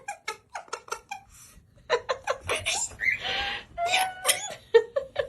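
Pet parrot chattering and calling in short pitched bursts with hissy squawks, after a run of quick clicking taps in the first second.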